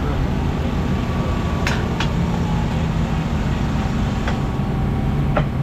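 Motorcycle engine running steadily under a rush of noise, with four short sharp clicks.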